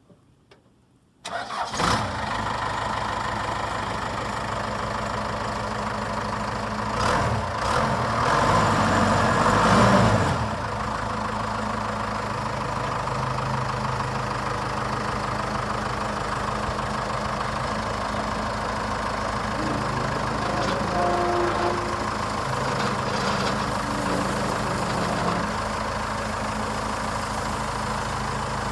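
Case 590 Turbo backhoe loader's turbodiesel engine starting about a second in, then running at a steady idle. It grows louder briefly around seven to ten seconds in, then settles back to idle.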